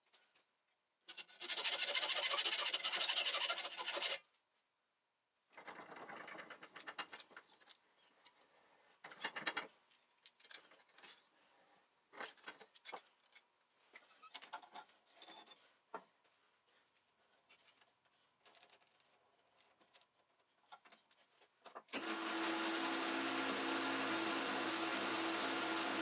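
Metal lathe work, sped up: a few seconds of loud cutting noise, then scattered clicks and clatter as parts are changed in the three-jaw chuck, and about 22 seconds in the lathe starts and runs steadily.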